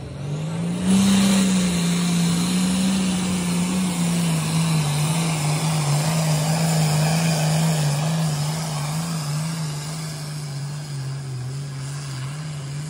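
Diesel engine of a pulling tractor at full throttle, dragging a weight-transfer sled. The engine note climbs in the first second, then holds loud and slowly sags and wavers as the load builds, easing off near the end.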